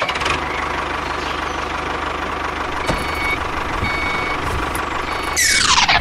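Truck engine sound running steadily, with a reversing beeper sounding about once a second from about halfway through. Near the end comes a loud sweep that falls quickly in pitch.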